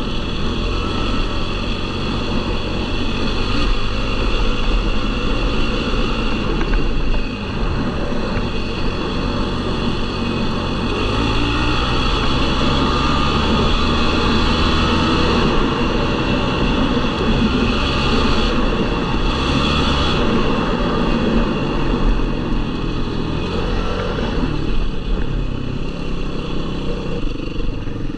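Yamaha YFZ450R sport quad's single-cylinder four-stroke engine running continuously while riding trails, its note rising and falling with the throttle.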